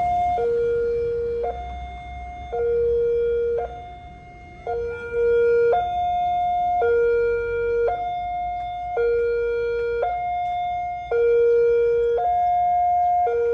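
Railway level-crossing warning siren sounding a steady high-low two-tone, each tone held about a second, signalling that a train is approaching and the crossing is closed.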